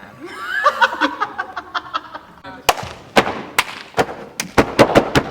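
Voices calling out with sliding pitch for about two seconds, then a run of sharp claps that come faster toward the end.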